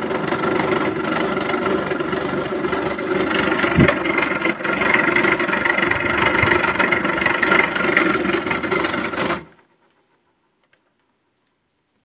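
White-Westinghouse portable air conditioner's fan motor running with a loud, rough mechanical noise, starting suddenly and cutting off after about nine and a half seconds, with a single knock about four seconds in. The noise comes from a bad fan motor bearing.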